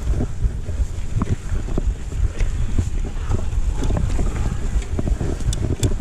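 Wind buffeting the camera's microphone as a mountain bike rides down a dirt forest trail, over a low rumble of tyres on dirt. The bike clatters over bumps in frequent short clicks and knocks.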